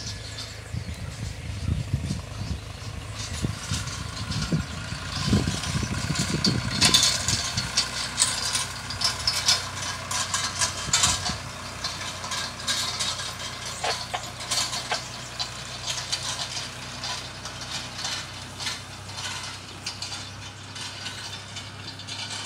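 Farm tractor engine running steadily while it pulls a hay tedder, whose spinning tines and gearbox clatter and rattle, loudest about a quarter of the way through. Low, gusty rumbles come through in the first several seconds.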